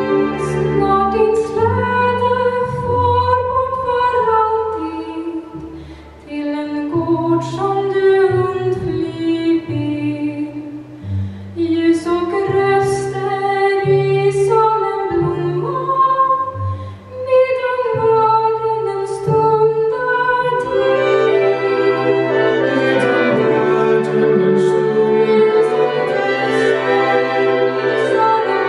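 Live chamber ensemble performing a song: voices singing over bowed strings and marimba.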